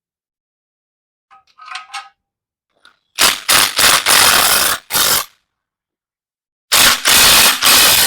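Impact wrench hammering on the harmonic balancer bolt of an LS 6.0 V8, in two bursts of about two seconds each, a second and a half apart; the bolt does not come off.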